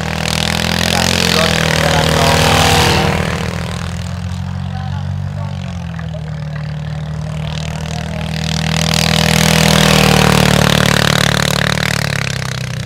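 Racing rice tractor's single-cylinder diesel engine running hard on a drag run. It swells loudly twice, about a second in and again from about eight seconds, with a steadier engine drone in between.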